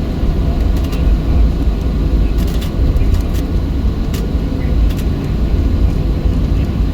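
Steady low rumble of a Boeing 737-700's CFM56 engines and airframe at low thrust, heard from inside the cabin while the jet taxis before takeoff. A few faint clicks sound over it.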